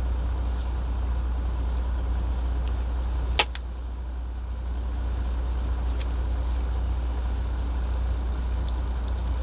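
Low steady rumble of an idling vehicle engine heard inside the cab, with a single sharp click about three and a half seconds in.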